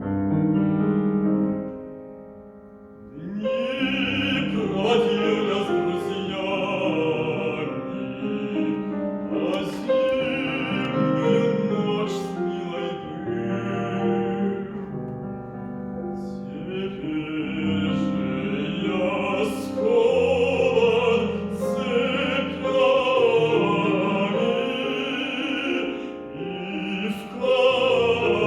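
A trained male voice sings a Russian folk song in operatic style with vibrato, accompanied by piano. The piano plays alone at first, and the voice comes in about three seconds in, pausing briefly twice between phrases.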